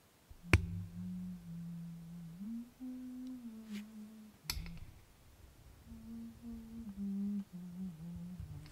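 A person humming a slow tune, the note holding and stepping up and down, broken by two sharp clicks: the loudest about half a second in, the other about four and a half seconds in.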